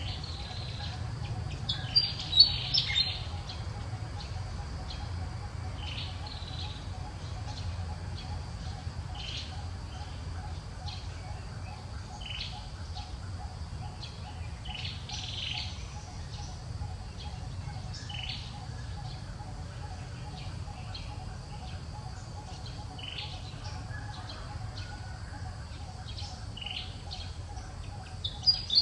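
Birds chirping in short, high calls throughout, with a loud flurry of chirps about two seconds in and another near the end, over a steady low background rumble.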